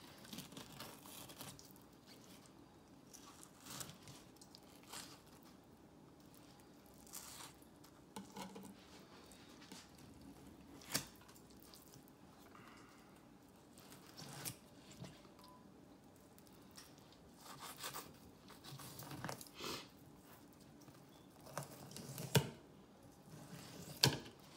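Fillet knife slicing a fish fillet away from the skin and ribs on a plastic cutting board: soft, irregular cutting and scraping strokes, with a few sharp clicks, the loudest near the end.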